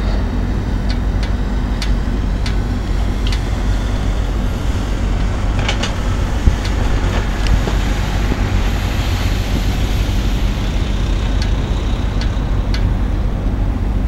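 Steady low mechanical rumble with a constant hum, mixed with wind on the microphone and a scattering of faint ticks.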